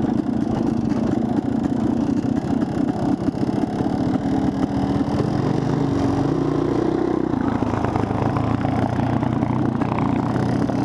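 Dirt bike engine running under way on a gravel trail, its pitch rising and falling back about six to seven seconds in as the throttle changes.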